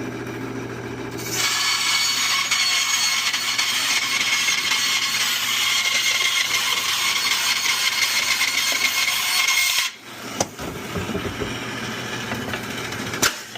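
Bandsaw running, then cutting through HVAC scrap metal with a loud steady rasp that cuts off abruptly about ten seconds in, as the blade skips off its track from being twisted in the cut. A few sharp clicks follow while the motor keeps humming.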